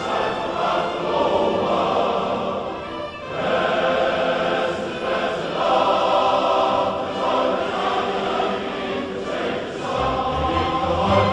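A massed male voice choir of thousands singing sustained chords in full harmony, with a brief break between phrases about three seconds in.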